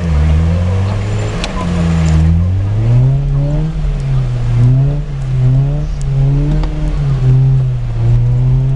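Suzuki Samurai's engine revving hard through deep mud, heard from inside the cab, its pitch rising and falling about once a second as the throttle is worked. Mud and water splash against the windscreen and body over it.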